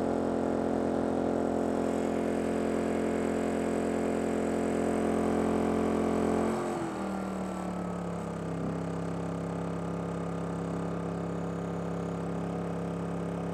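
Westinghouse iGen2200 inverter generator engine running steadily under a heater load. About six and a half seconds in, the engine speed drops as efficiency (eco) mode cuts in, and it settles to a lower, quieter steady running.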